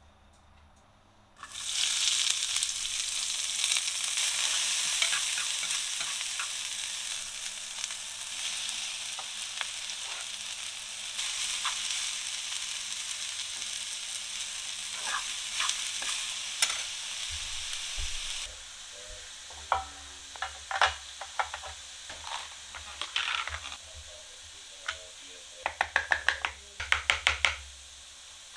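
Sliced mushrooms and vegetables sizzling in hot oil in a frying pan, starting suddenly about a second and a half in and carrying on loudly, with chopsticks clicking against the pan as the food is stirred. About two-thirds of the way through the sizzle drops off sharply, leaving quieter clicks and scrapes.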